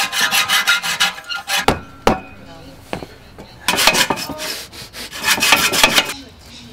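Hacksaw sawing through the thin aluminium fins of a front-mount intercooler core in rapid back-and-forth strokes. About two seconds in, the sawing stops for a few knocks and a short pause, then it starts again for about two and a half seconds.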